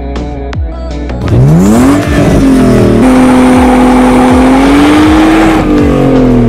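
BMW E36 320i straight-six revving hard during a burnout. The revs climb about a second in, hold high with the hiss of spinning tyres, and drop back near the end. Electronic music with a beat plays underneath, plainest at the start.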